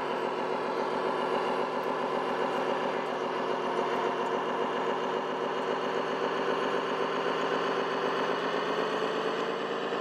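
A radio-controlled Scania truck's sound module playing a diesel truck engine at a steady idle, rising slightly in pitch near the end.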